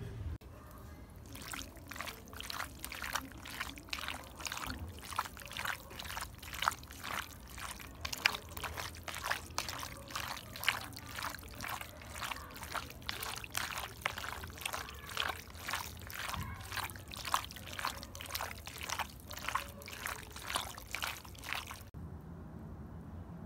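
Raw liver pieces in a wet marinade being mixed in a bowl: rhythmic squelching and sloshing, about two strokes a second, which cuts off abruptly near the end.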